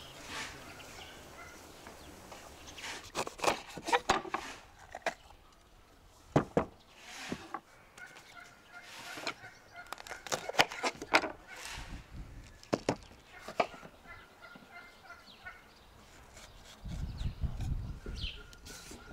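A kitchen knife cutting bell peppers on a wooden cutting board, giving a series of sharp knocks in clusters. Poultry calls in the background.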